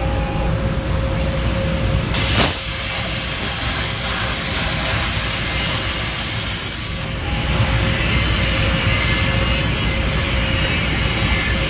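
ESAB Avenger X CNC plasma cutter running: a steady hiss with a constant hum under it, and a sudden loud blast about two and a half seconds in as the plasma arc fires. The hiss changes around seven seconds in as the arc goes out.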